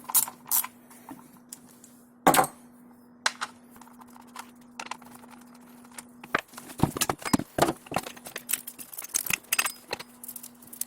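Clicks and clanks of a tool and small nuts as the side cover of an Efco 136 chainsaw is unbolted and taken off: one loud knock about two seconds in, then a quick run of rattling clicks in the second half, over a faint steady hum.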